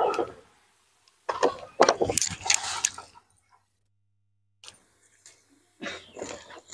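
Clusters of light clicks and knocks, as of hard objects being handled, with a dead-silent gap in the middle.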